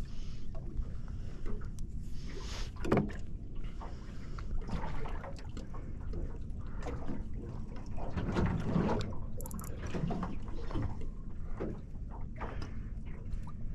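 Water lapping and slapping against a small boat's hull, with scattered knocks and clunks.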